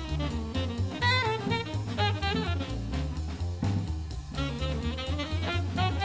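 Jazz background music: a wavering lead melody over a bass line and drums.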